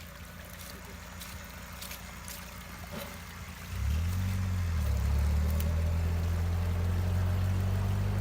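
UAZ off-roader's engine running low under faint hiss and scattered ticks, then about two-thirds of the way in it revs up sharply into a loud, steady low drone.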